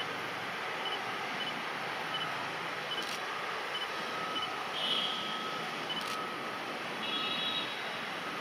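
Steady running noise of a WAG-5 electric locomotive and its coaches rolling slowly on the track. Faint short high beeps repeat about every half second, with a brief higher tone near the end.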